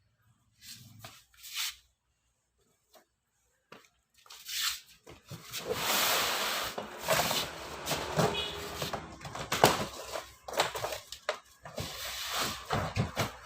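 Packaging being handled while a refrigerator is unboxed: a few light clicks, then from about four seconds in a dense run of rustling, crackling and knocks.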